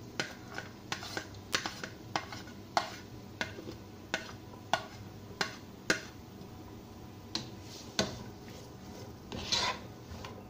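Spatula scraping chopped onions off a ceramic plate into a non-stick pot, with a run of sharp clinks and scrapes against the plate and pot rim, about one or two a second. Near the end, the spatula stirs the onions in the pot.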